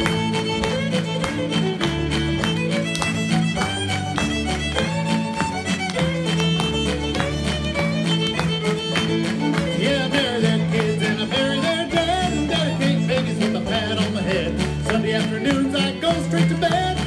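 Instrumental fiddle break of a country/bluegrass song: a fiddle plays the lead melody over a steady beat and an alternating bass line.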